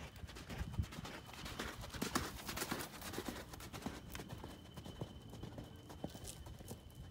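Hoofbeats of a ridden horse on sand arena footing: a run of irregular knocks.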